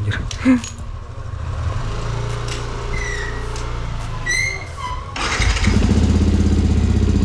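Yamaha WR155R's single-cylinder engine is electric-started about five seconds in, catches at once and settles into an even, pulsing idle through a Radamel Racing aftermarket exhaust.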